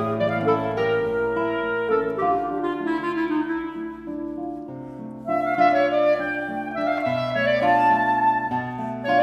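Clarinet and classical guitar playing together: the clarinet holds sustained melody notes over the plucked guitar. The music drops softer about three and a half seconds in and swells again just after five seconds.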